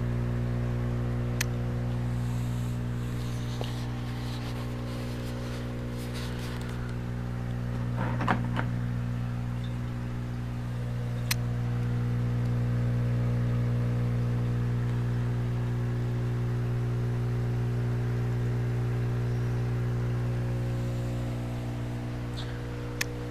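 Steady electric hum of a deep water culture hydroponic rig's pumps: an aquarium-type air pump feeding air stones and a water pump running continuously. A few sharp clicks and a brief rustle about eight seconds in.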